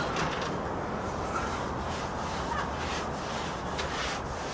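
Hand sanding of dried joint compound on a sheetrock ceiling patch: sandpaper rubbing in a few uneven strokes over a steady low background hum.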